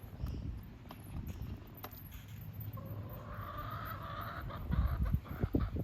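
A chicken gives a drawn-out call starting about three seconds in, over a constant low rumble of wind buffeting the microphone, which gusts louder near the end.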